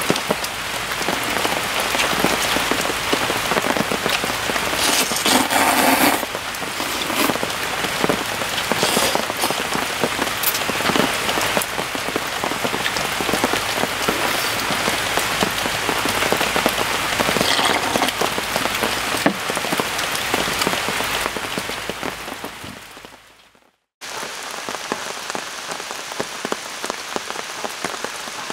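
Heavy rain falling steadily, drops pattering on a camping tarp overhead. The rain fades out to a brief silence near the end, then comes back a little softer.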